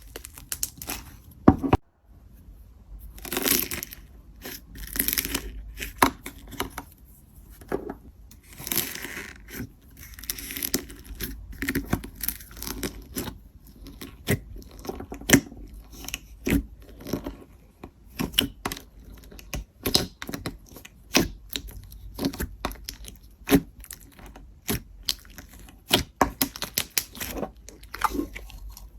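Slime being squished and stretched by hand, making sticky crackling and many sharp, irregular pops and clicks.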